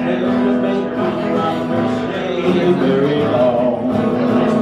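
Two acoustic guitars playing together in a live country-style tune, strummed chords with picked notes over them.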